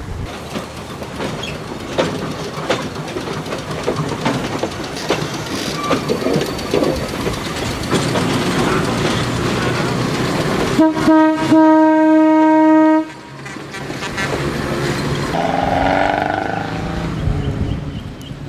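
A 1920 Brill electric interurban car rolling past, its steel wheels clattering over the rail joints. About eleven seconds in, its horn sounds a short toot and then a held blast of about two seconds, the loudest sound, which cuts off suddenly.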